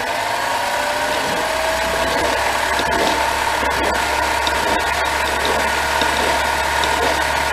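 Lathe running under its electric motor, a steady whine that rises slightly in pitch over the first second or two and then holds, over a low hum.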